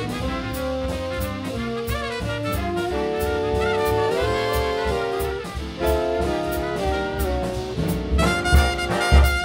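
Live big band jazz: the saxophone section and brass play held, harmonised chords over a steady ride cymbal and bass. Near the end the horns get louder and brighter with accented hits.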